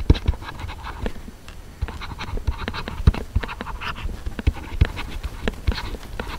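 A stylus scratching and tapping as words are handwritten, in short scratchy strokes with irregular small knocks.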